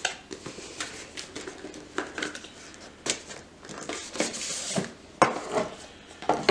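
Small cardboard product box being popped open and its contents handled: irregular taps, clicks, scrapes and rustles of cardboard and paper.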